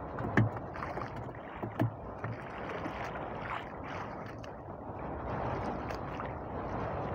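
Sea water sloshing and lapping against the hull of a small fishing boat riding the swell. A few sharp knocks sound in the first two seconds.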